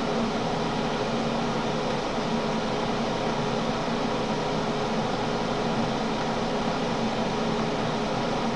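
Steady fan-like noise with a faint low hum, unchanging throughout.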